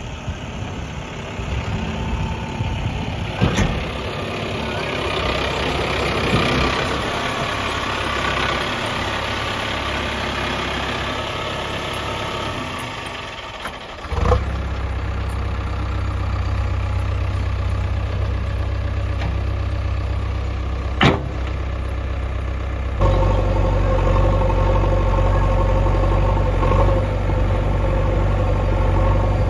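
Diesel engine of a JCB 3DX backhoe loader running steadily, with a few sharp knocks. About halfway through the sound changes abruptly to a deeper, steadier engine hum, which takes on a stronger pitched note later on.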